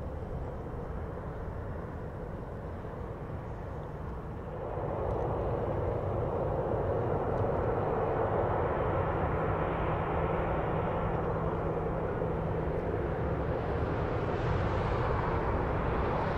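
Jet airliner engines running at an airport: a steady rushing jet noise that swells about four and a half seconds in and then holds, with a low steady hum under it.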